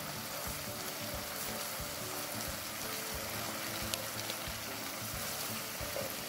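Gungchae (stem-lettuce) pieces sizzling steadily in chili oil and seasoned liquid in a pan as they are stirred with a wooden spatula, simmering gently while the sauce reduces. A single sharp tick sounds about four seconds in.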